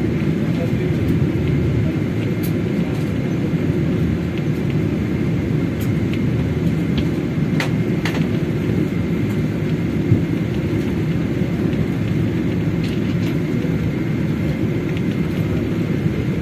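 Steady low rumble of a Boeing 777 taxiing, heard inside the passenger cabin, with a couple of faint clicks about eight seconds in.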